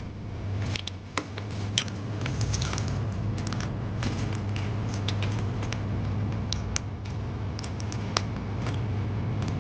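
Scattered light clicks and taps of small tools and parts being handled while a laptop is taken apart, over a steady low hum.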